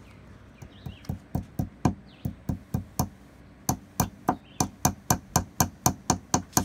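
Small hammer driving nails into the corner of a wooden AZ beehive frame: a quick run of sharp taps, about four a second, starting light and growing louder, with a short pause a little past halfway.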